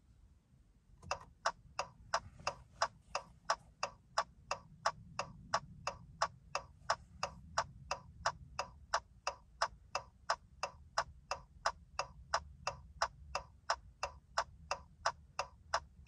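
2021 Dodge Challenger's turn-signal ticker clicking with the hazard lights on, starting about a second in and ticking steadily about three times a second, with the engine off.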